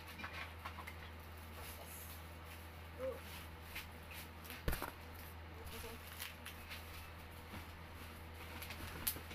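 Faint rustling and light clicks of plastic-wrapped office-chair parts being handled, with a single sharper knock about five seconds in, over a steady low hum.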